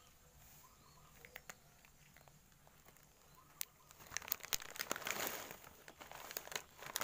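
Crinkling and rustling of plastic with many quick clicks, starting about four seconds in and coming in louder surges.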